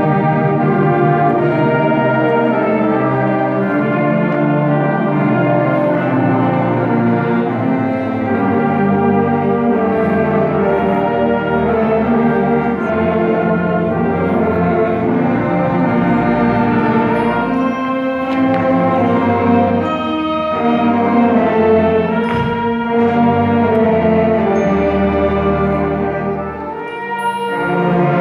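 A middle school symphonic band playing live, clarinets, saxophones and brass sounding sustained chords and melody together. The music dips briefly softer a couple of seconds before the end.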